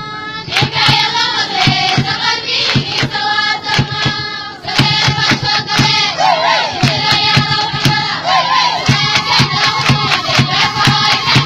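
A chorus of schoolgirls singing a Somali wedding folk song together, over a steady beat of hand claps.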